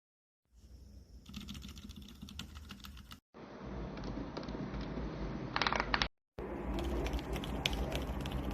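Typing on a mechanical keyboard fitted with Outemu silent switches: quick runs of muted keystroke clicks in three separate stretches, each cut off abruptly.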